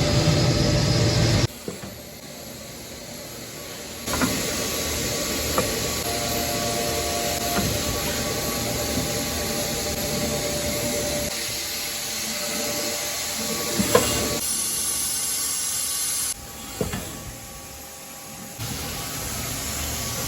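Milling machine cutting metal: a steady hissing machine noise with faint held tones and a few sharp clicks. It drops and jumps abruptly in level several times, as spliced clips change.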